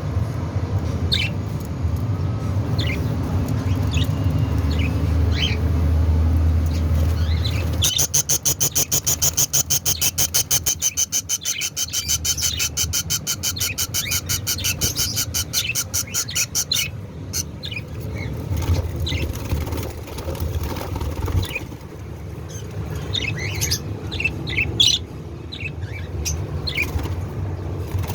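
Budgerigars chirping in short, scattered calls. From about eight to seventeen seconds in there is a rapid, even pulsing sound at several pulses a second. A low rumble runs underneath.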